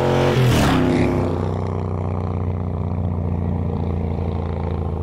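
A motorcycle passing close by, its engine note dropping in pitch as it goes past about half a second in. A steady low drone follows.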